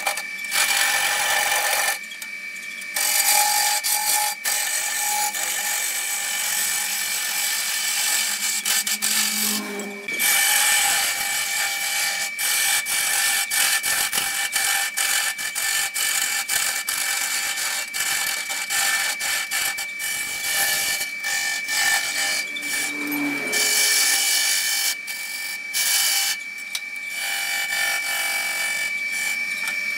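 Wood lathe turning a long wooden spindle while a hand-held turning tool cuts into the spinning wood: a steady scraping hiss with a constant high tone under it, breaking off briefly a few times.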